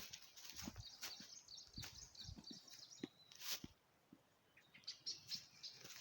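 A small bird singing a quick run of high chirps for a couple of seconds, with a few more high notes near the end, over soft, irregular thuds.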